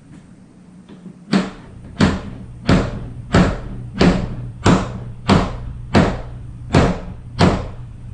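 A hammer striking a pin punch ten times in an even rhythm, about one and a half blows a second, driving the hinge pin of a Pelican case latch.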